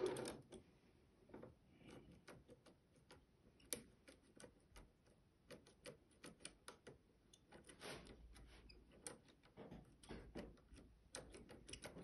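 Rotorpick lock-picking tool working the pins of a Cisa RS3 S lock cylinder: faint, irregular small metallic clicks and ticks as its rings are turned through the first rotation.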